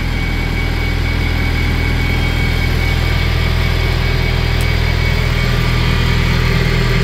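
Semi-truck's diesel engine idling steadily, an even low hum with no change in speed.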